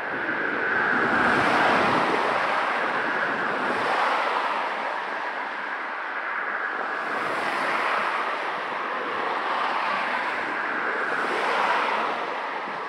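Boeing 767 jet engines heard from a distance as the airliner rolls out on the runway after touchdown: a rushing noise that swells and fades in slow waves.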